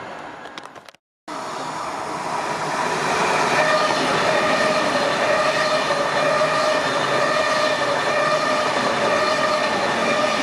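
PKP Intercity ED250 Pendolino high-speed electric train passing close at speed. It makes a loud, steady rush of wheels and air with a sustained high tone over it, starting suddenly about a second in.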